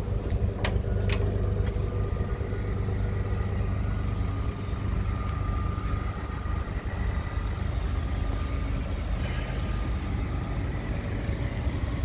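Ford F-150 PowerBoost's 3.5-litre twin-turbo V6 hybrid engine idling steadily, a low even rumble, with two sharp clicks about a second in.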